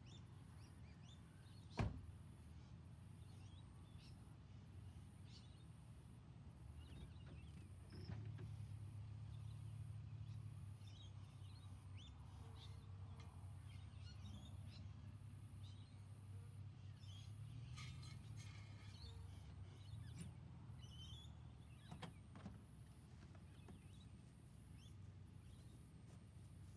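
Faint, low rumble of a Toyota Hilux ute's engine, growing stronger as the ute creeps forward under load, pulling a rope over a car-rim pulley to drag a buried star picket up, then easing off. A door shuts with a sharp clunk about two seconds in, and a smaller click comes later; faint bird chirps sound throughout.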